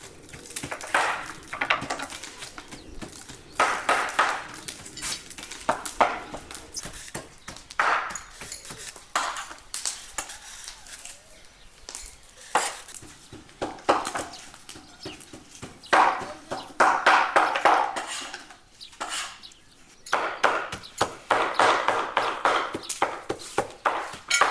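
Kitchen utensils knocking and scraping against pots and dishes: irregular taps and clinks, with runs of quick repeated strokes about two-thirds of the way through and again near the end.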